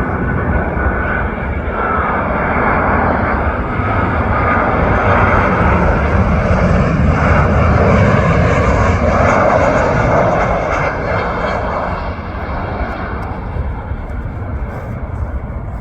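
Jet airliner passing low overhead on landing approach. Its engine roar swells to a peak about halfway through, then fades.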